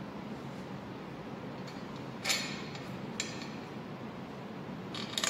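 Light metal clinks of steel bolts being handled and set into the bolt holes of an engine's rear gear housing: a sharp clink about two seconds in, a lighter one a second later, and a quick run of clinks near the end, over a steady low hum.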